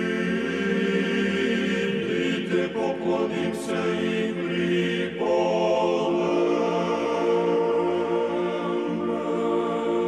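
Choral chanting in long held chords over a steady low drone, the chord shifting about five seconds in.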